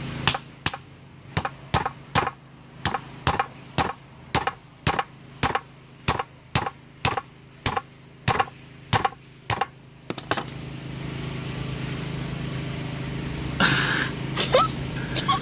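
A cleaver chopping through a large fish into a wooden chopping board, in steady strokes about two a second. The chopping stops about ten seconds in, and a steady low hum with some rustling noise follows.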